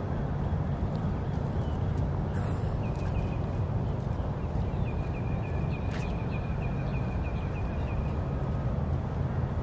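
A bird giving a rapid run of short, even chattering notes at one high pitch, about a second in and again for a few seconds midway, over a steady low outdoor rumble.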